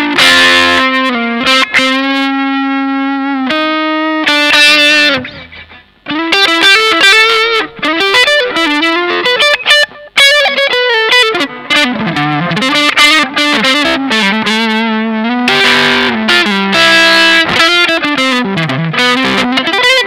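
Electric guitar played through a Vox StompLab multi-effects pedal set to a distorted drive patch: single-note phrases with a long sustained note about two seconds in and bent notes later on.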